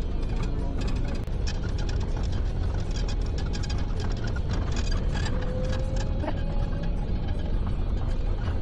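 Inside a moving bus: a steady low road-and-engine rumble with constant fast, irregular rattling of loose fittings.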